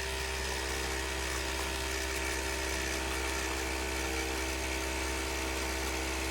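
Nespresso CitiZ espresso machine's pump buzzing steadily while it brews a long coffee.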